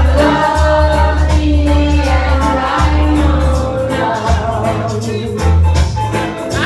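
Loud music with singing over a heavy bass line and a steady beat, played through a sound system.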